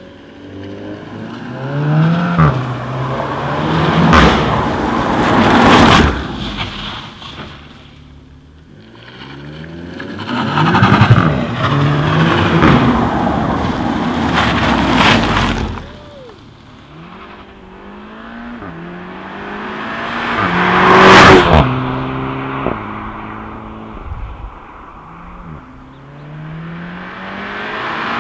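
Seat Leon 5F Cupra hatchbacks, each with a 2.0 TSI turbocharged four-cylinder on its stock exhaust, accelerating hard past the microphone one after another. The engine note climbs through each gear and drops at every shift, and each car swells loud as it goes by and then fades.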